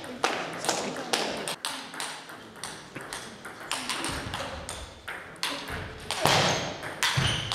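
Table tennis rally: the ball clicking sharply off the bats and the table in quick, irregular succession.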